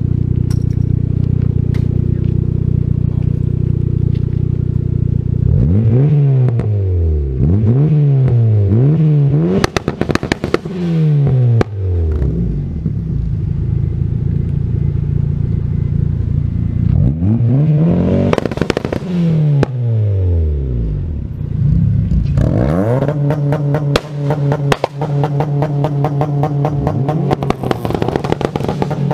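Honda Prelude's H22A four-cylinder engine idling, then blipped hard several times, each rev rising and falling with sharp crackling pops. Near the end it is held against a Bee*R two-step rev limiter: the revs stay pinned at one pitch while the ignition cut pops in a rapid stutter.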